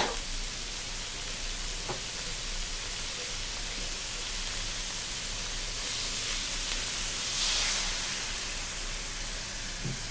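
Chicken and red curry paste sizzling steadily in a wok, fried in coconut cream without oil. About seven seconds in, coconut milk poured into the hot wok brings a brief louder hiss.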